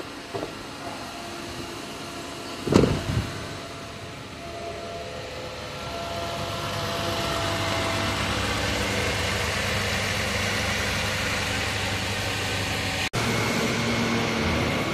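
Lexus ES 350's V6 engine idling steadily after an oil and filter change, louder from about six seconds in. A single thump about three seconds in.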